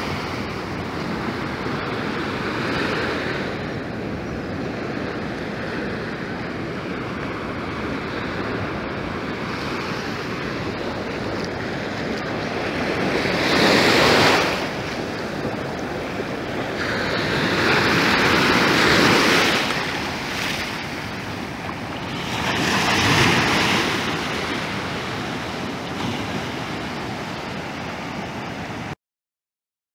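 Ocean surf washing up on a sandy beach: a steady wash of water with three louder surges as waves break and rush in, the first about halfway through and two more over the following ten seconds. The sound stops abruptly near the end.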